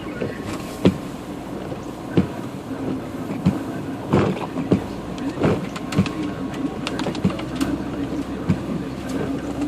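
A vehicle's engine running steadily, with irregular knocks and clunks scattered through as it drives through floodwater.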